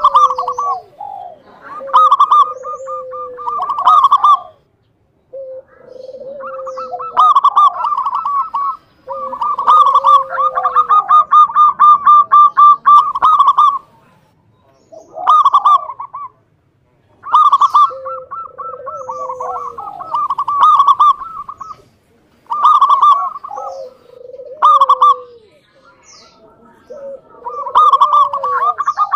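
Zebra dove (perkutut) singing: repeated phrases of rapid, staccato cooing notes, separated by short pauses.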